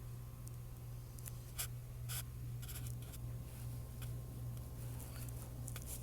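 A few short scrapes and clicks of light rubbing, like something being handled close to the microphone, over a steady low hum.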